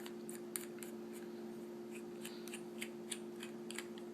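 Small screwdriver clicking and scraping on a tiny screw by an iPhone's dock port as it is unscrewed: light, irregular ticks, the sharpest about half a second in. A steady low hum runs underneath.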